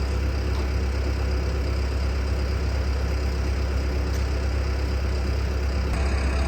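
An engine running at a steady idle, an even low rumble with no change in pace.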